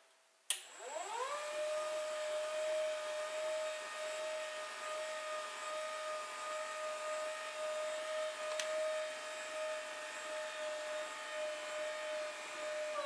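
Hydraulic lift's pump motor switching on with a click, its whine rising in pitch for about a second, then running at a steady pitch and cutting off near the end. A single sharp click comes about two-thirds of the way through.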